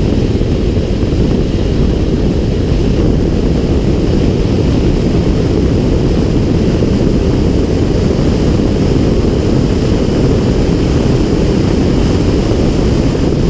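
Steady, loud wind rumble on the microphone of a camera mounted outside a car driving at track speed.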